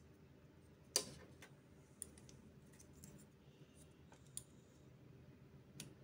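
A few faint clicks of plastic and circuit board being handled as a SATA connector is fitted onto a SATA-to-M.2 adapter board, the sharpest about a second in.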